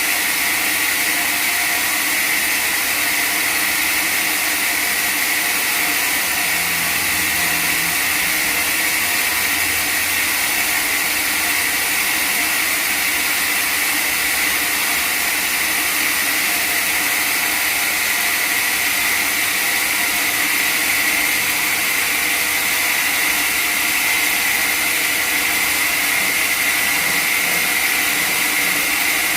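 Sawmill machinery running steadily, a loud even mechanical noise with a strong high band and no pauses or changes.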